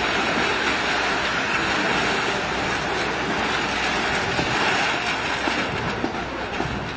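A train running on the railway track, with a steady rumble and rattle of wheels.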